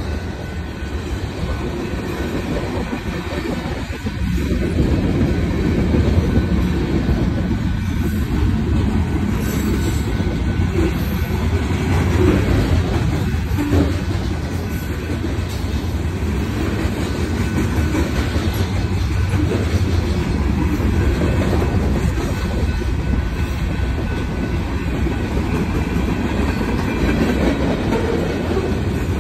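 Freight train of covered hopper and tank cars rolling past at close range: a steady, loud rumble and clatter of steel wheels on the rails.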